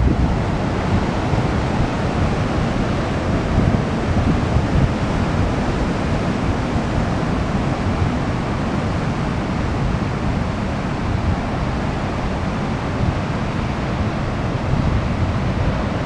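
Ocean surf at a king tide washing steadily over the beach and around rocks, with wind buffeting the microphone.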